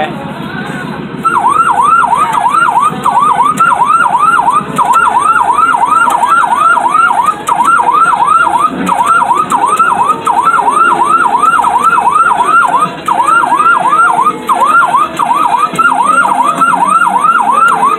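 A fire truck kiddie ride's electronic siren sounding through its small speaker: a fast yelping tone that swoops down and back up about two to three times a second, starting about a second in.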